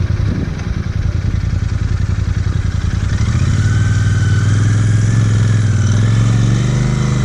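Royal Enfield Interceptor 650's parallel-twin engine running as the bike is ridden over a rough gravel track. The engine note builds and gets louder about three seconds in.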